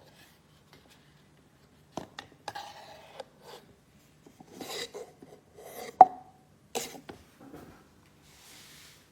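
Unbreakable plastic camping plates being handled: scattered clicks and knocks with rubbing and scraping between them, and one sharper, briefly ringing clink about six seconds in.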